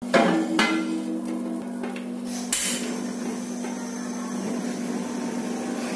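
A gas ring burner being lit: two sharp clicks at the start, a short rush of hiss about two and a half seconds in as the gas catches, then a steady hiss from the burner. Under it all runs a constant low hum.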